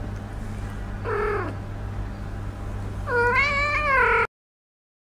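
Kitten meowing: a short meow falling in pitch about a second in, then a longer, wavering meow near the end that cuts off suddenly.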